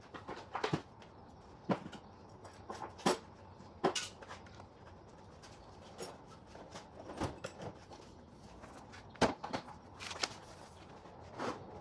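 Irregular knocks and clinks of hand tools and shop items being handled, set down and put away on a workbench, about eight sharp hits spread unevenly through the stretch.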